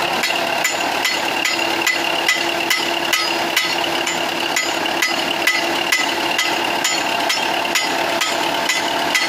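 Diesel tractor engine idling, with a sharp metallic knock repeating evenly a little over twice a second.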